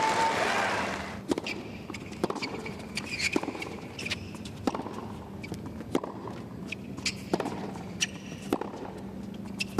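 Applause fading out in the first second. Then a series of sharp knocks from a tennis ball bouncing on a hard court and being struck by rackets during a point.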